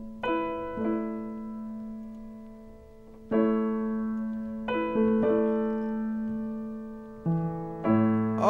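Solo piano playing slow chords, about seven over the stretch, each struck and left to ring and fade before the next.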